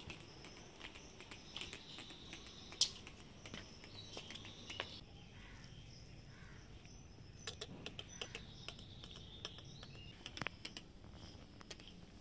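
Faint steady insect chorus in the background, with scattered light clicks and taps throughout, the sharpest about three seconds in and a run of them around eight and ten seconds in.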